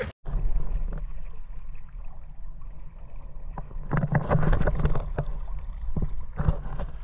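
Fast-running river water rushing and splashing, with a heavy low rumble underneath and louder, choppier stretches in the second half.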